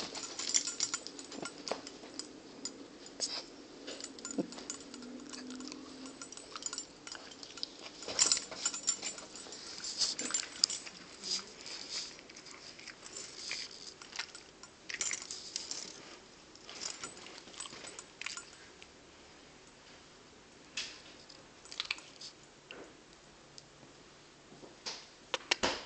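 A West Highland Terrier's metal collar tag jingling in many short rattles as the dog moves and noses about on a chair, busiest in the first two-thirds and sparser near the end.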